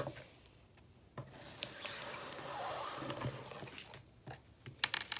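Thick glittery slime full of foam beads being pulled and stretched up out of a plastic tub by hand: a soft squishing rustle, then a few sharp clicks and pops near the end.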